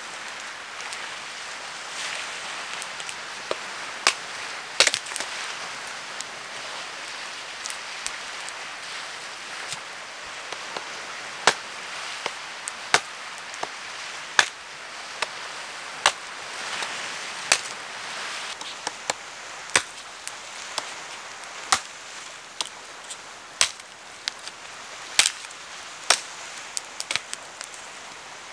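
Wood being chopped: sharp, single knocks at irregular intervals, about one every second or so, over a steady hiss.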